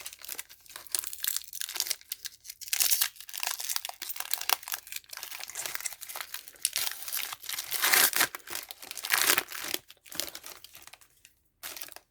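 Foil trading-card wrappers being crinkled and torn open by hand, in bursts of irregular crackling and ripping, loudest around three seconds in and again near eight to nine seconds, dying away near the end.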